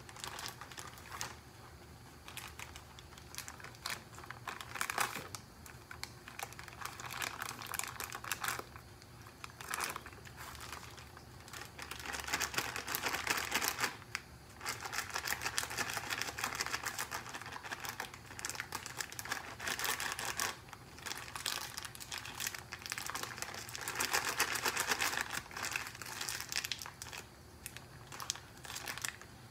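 Plastic bag of brown sugar crinkling and rustling as it is handled and worked at by hand, in stretches that come and go.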